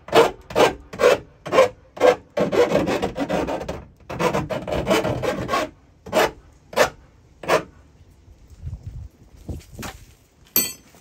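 Round file rasping back and forth in the edge of a freshly drilled hole in sheet-metal van roof, deburring it. The strokes come about two a second, with two longer drawn strokes in the middle, and stop about three-quarters of the way in. A sharp click near the end.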